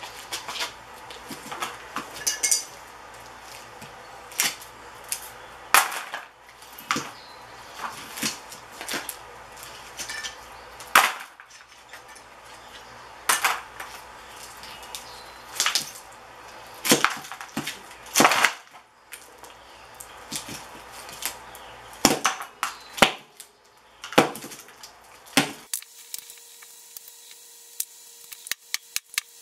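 Steel core laminations being pried and broken off a burnt sign ballast by hand and dropped into a metal tray: irregular sharp metallic clinks and clacks, roughly one every second or two, with crumbling debris scraping on concrete between them.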